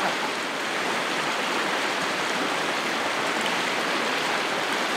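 Steady rush of a flowing creek's current running past a rocky bank.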